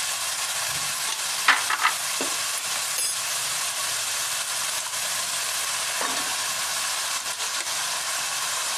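Onion-tomato masala paste and freshly added ground spices frying in hot oil in a kadhai, sizzling steadily. A few sharp clicks about a second and a half in.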